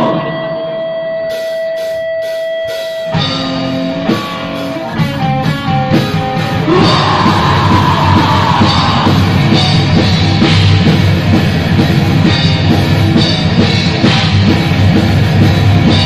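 Black metal band playing live. The song opens with a steady held tone and a few sharp taps, then a few separate notes, and about five seconds in the full band comes in loud with drum kit and electric guitars.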